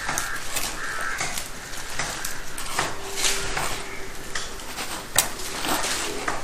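Crows cawing a few times, over scraping, rustling and small knocks of soil and stones being put into a sack.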